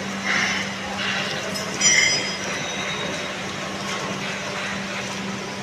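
Train running with a steady low hum and rumbling noise, and a brief high-pitched metallic squeal of wheels on rail about two seconds in.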